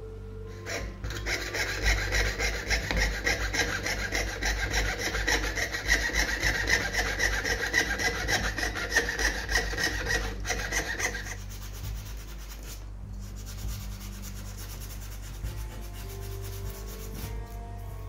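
Jeweler's saw cutting thin brass sheet in quick rasping strokes for about ten seconds, then stopping and giving way to a fainter rubbing.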